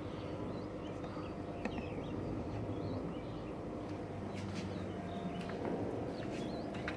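Faint birdsong in the background: scattered short chirps over a low steady hum.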